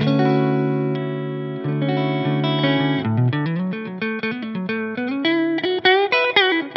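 1978 Tokai Springy Sound ST-42 Strat-style electric guitar played through a Fender '65 Deluxe Reverb amp. Held chords ring for about the first three seconds, then a low note is bent up, followed by quicker single-note lead lines with string bends.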